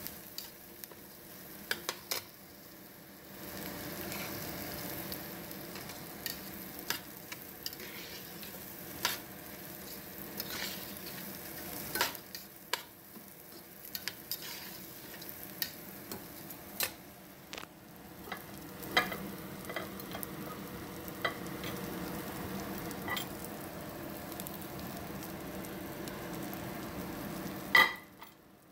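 Raw rice with diced bell pepper and onion sizzling as it fries in butter in a stainless steel pot, toasting before the water goes in, while a slotted metal spoon stirs it, with irregular scrapes and clicks of the spoon against the pot. One sharper clack near the end.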